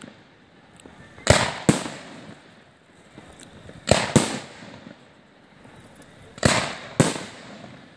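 Fireworks going off in pairs of sharp bangs, three pairs about two and a half seconds apart, each bang trailing off.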